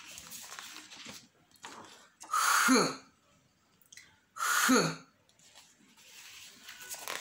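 A voice saying one short syllable twice, about two seconds apart: a letter of the Ewe alphabet, each time with a hissing start and a falling pitch.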